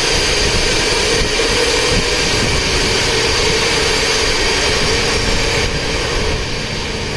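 Dense, steady whir of many Bitcoin ASIC miners' cooling fans running together inside a metal shipping container, with a constant hum and a high whine over the rush of air. Near the end the noise gets a little quieter as the microphone passes out through the container door.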